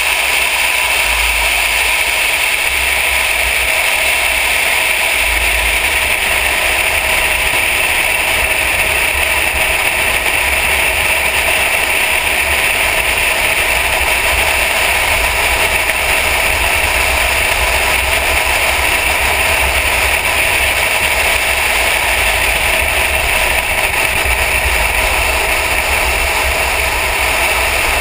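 Steady rush of wind and road noise on a car's hood-mounted camera at track speed, with a low buffeting rumble underneath.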